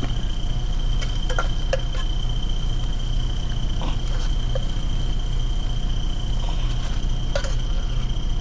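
Light clinks and taps of cooking utensils and dishes, a few scattered single knocks. Under them run a steady low rumble and a constant high whine.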